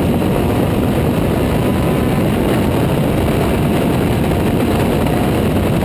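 Juno SSE race car at speed, heard from its open cockpit: its Honda Type R engine running under load beneath heavy wind rush on the onboard microphone, loud and steady.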